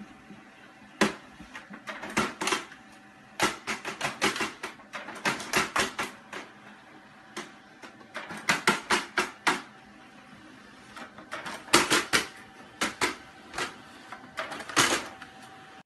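Multifunction printer running as it feeds paper out, with a faint steady whine. Over it come clusters of quick clicks and taps, short runs several times a second, as a cat's paws bat at the printer and the paper coming out.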